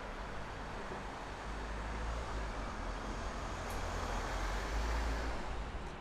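A motor vehicle passing close by, its rumble and road noise swelling over a few seconds and dropping away near the end.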